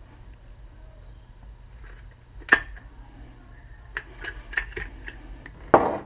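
Scattered sharp clicks and light knocks from tools and parts being handled during sealant work: one click about two and a half seconds in, a quick run of small clicks about a second later, and two louder knocks near the end, over a faint steady low hum.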